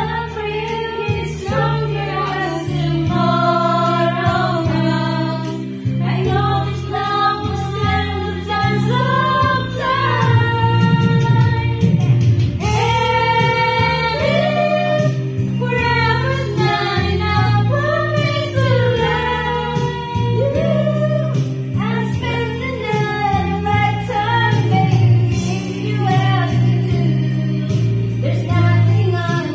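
Karaoke: singing of a love ballad through a handheld karaoke microphone over a backing music track.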